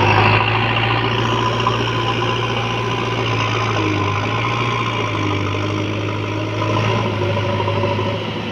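JCB 3DX backhoe loader's diesel engine running steadily as the machine pushes loose soil with its front loader bucket.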